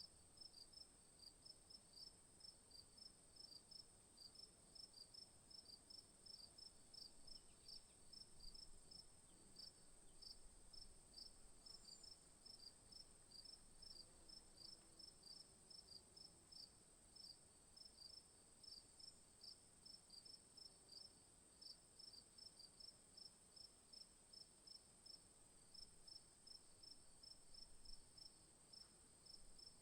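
Faint insect chorus: a steady high buzz with a regular chirp repeating about three times a second.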